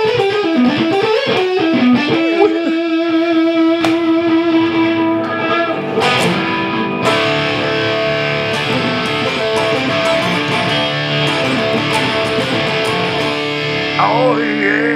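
Soviet 'Maria' double-neck electric guitar played through overdrive: wavering, bent notes near the start, a long held note, then notes and chords left ringing and sustaining.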